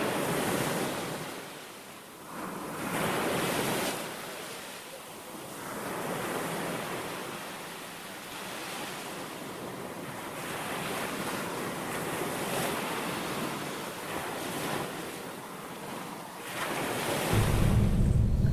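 Sea waves washing ashore in slow swells, with wind on the microphone. A deep low rumble sets in near the end.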